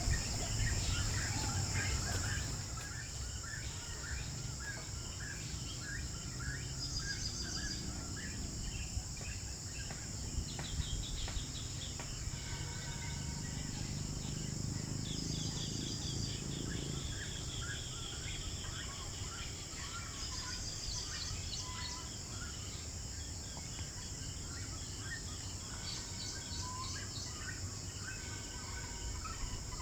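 Outdoor ambience: many short bird chirps and calls over a steady high insect buzz and a low rumble.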